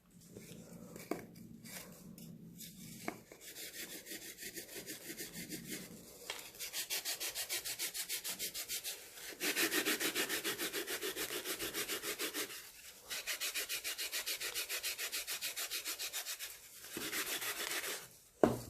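Baking soda slab being rubbed and crushed, a gritty rhythmic scraping of quick even strokes, louder for a few seconds in the middle.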